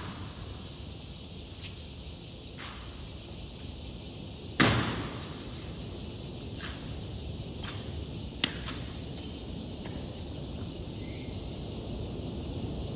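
Honor guard rifle drill: scattered sharp clicks and taps of rifles being handled and handed off, with one loud, sharp impact and a short ringing tail about four and a half seconds in, against a steady outdoor hiss.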